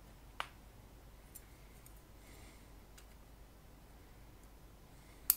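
Small sharp clicks of tools and metal parts being handled inside an opened oscilloscope chassis: one about half a second in, a few faint ticks after, and a louder click near the end.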